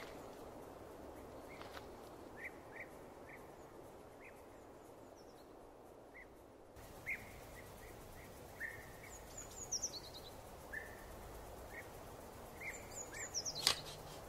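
Quiet outdoor ambience: birds chirping repeatedly in short calls over a steady background hiss. A single sharp click near the end stands out above the birds.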